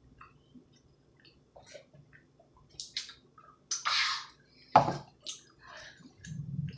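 Eating sounds close to the microphone: scattered wet mouth clicks and chewing, a short rustle about four seconds in and one sharp knock just before five seconds.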